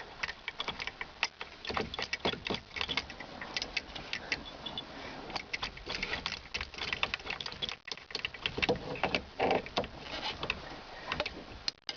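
Irregular metallic clicks and rattles from a steering wheel puller and its bolts being fitted and threaded by hand into the steering wheel's threaded bosses.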